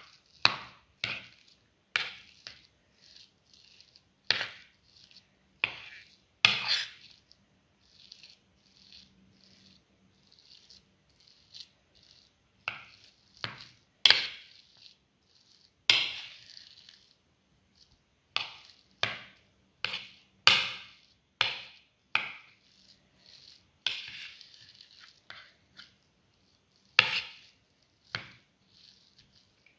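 Chicken liver pieces being mixed by hand into mashed potatoes on a plate. The mixing gives irregular short scraping and tapping sounds, roughly one every second or so, with pauses between.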